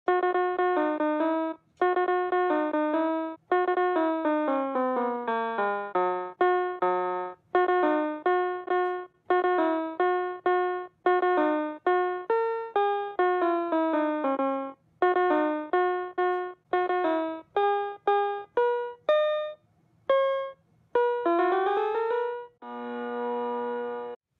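Bouncy electric-piano music: a melody of short, detached notes in quick phrases with brief gaps, ending on a held chord near the end.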